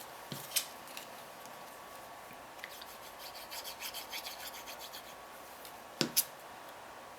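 Cardstock pieces being handled and rubbed on the work surface while paper piecing. A run of quick scratchy strokes comes in the middle, and two sharp taps come near the end.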